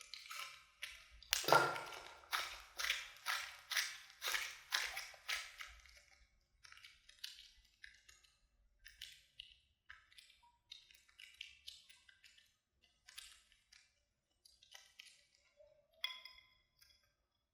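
Light, sharp taps on a hard object, about two a second and loudest about a second and a half in, thinning after about six seconds into scattered faint ticks, with a couple more taps near the end.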